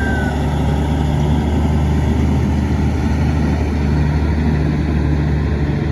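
Large farm diesel engine running steadily under harvest work, a deep, even drone.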